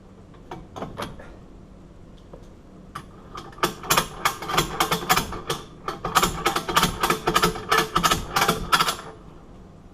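A hand tool's mechanism clicking: a few scattered clicks, then a rapid run of sharp clicks at about four a second for some five seconds.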